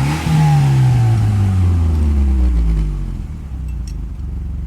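Turbocharged 2.0-litre four-cylinder engine of a 1996 Mitsubishi Eclipse GST revved, peaking just after the start with a hiss, then falling steadily back over about three seconds to a smooth idle.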